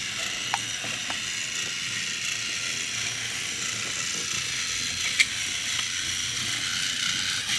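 A battery-powered toy Thomas engine's small motor and gears whirring steadily as it drives along wooden track, with a few sharp clicks, the loudest about five seconds in.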